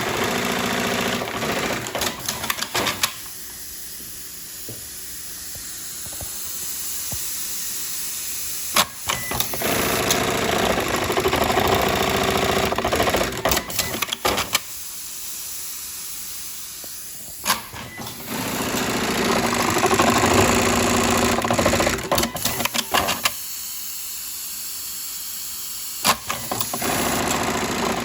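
Juki MEB-3200S automatic eyelet buttonhole machine working through repeated sewing cycles. Spells of fast, dense stitching alternate with quieter spells, and a single sharp knock comes between cycles, three times.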